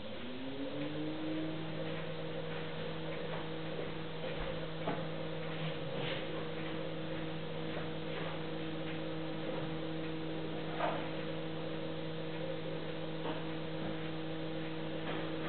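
A steady low hum that rises in pitch over the first second and a half and then holds level, over a faint hiss, with a few soft ticks.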